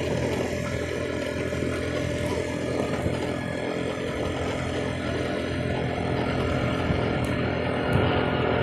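A small engine running steadily under the ride, with an even hum and no change in pace.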